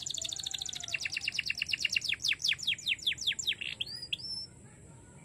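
Domestic canary singing: fast trills of rapidly repeated high notes, some about ten a second, then a run of slower down-swept notes and a couple of rising whistles. The song stops about four and a half seconds in.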